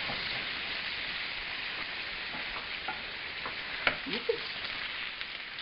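Steady hiss with a few soft crinkles and clicks as a stick of butter is unwrapped from its paper wrapper.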